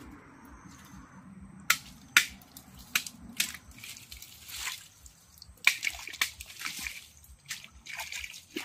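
Machete cutting and trimming asam paya palm stems: a string of sharp, irregular snaps and knocks mixed with the rustle of fronds.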